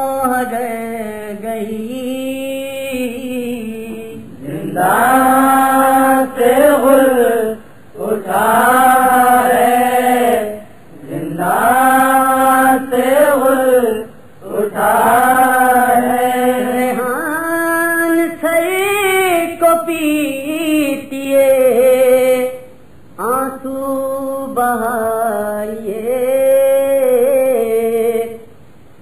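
An Urdu noha, a Shia lament, chanted by a male reciter in long, held, wavering phrases of a few seconds each, with short breaks for breath between them.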